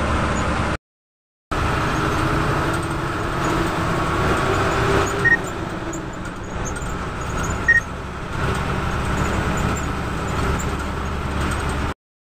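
Bus engine and road noise heard from inside the cabin while the bus drives on, a steady low rumble. A short high beep sounds twice in the middle, and the sound cuts out completely for under a second near the start.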